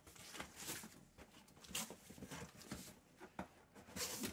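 Faint rustling, scraping and light knocks of a cardboard shipping box and its packing being handled as a hand reaches into it.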